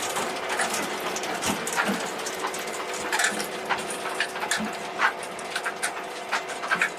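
Woodworking machinery running with a steady hum and many irregular clicks and knocks, wood and parts clattering through it.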